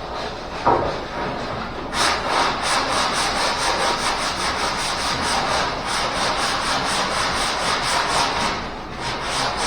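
Sandpaper on a hand sanding block rubbed quickly back and forth over body filler, in a steady run of even strokes starting about two seconds in and easing briefly near the end. It is preceded by a single short knock.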